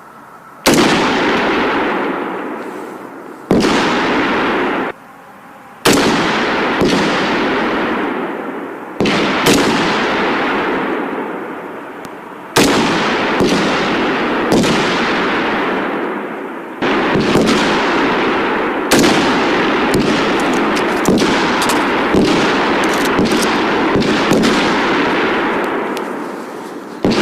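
Small-arms gunfire on a firing range: about twenty single shots at irregular intervals, one to three seconds apart, each followed by a long rolling echo that fades away.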